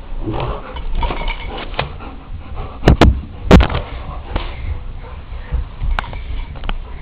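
Dogs play-fighting, with a few short sharp barks, the loudest about three seconds in, over low rumbling noise.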